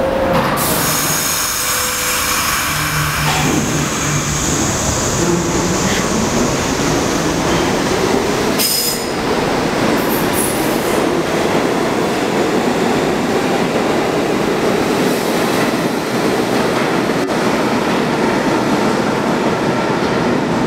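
New York City subway train pulling out of the station: its traction motors whine, rising slowly in pitch as it picks up speed, over a steady rumble of wheels on rail with some wheel squeal.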